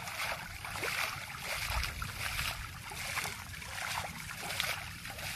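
Water splashing and sloshing as a cloth bag net is swept again and again through shallow pond water, in repeated surges roughly every three-quarters of a second.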